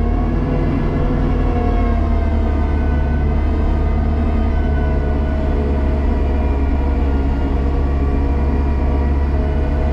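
Kubota tractor's diesel engine running steadily at high rpm, driving the snowblower through the PTO as it blows snow, heard from inside the cab. The low drone carries several higher tones that waver slightly.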